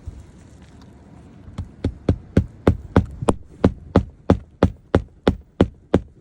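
Hammer driving roofing nails into a shingle: a steady run of sharp blows, about three a second, starting a little under two seconds in.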